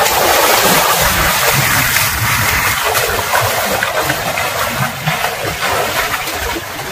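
River water rushing and splashing close to the microphone: a loud, steady hiss that starts abruptly and eases slightly near the end.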